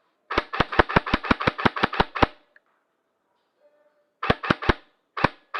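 Airsoft gun firing: a quick string of about eleven shots at roughly five or six a second, a pause, then three quick shots and two single shots near the end.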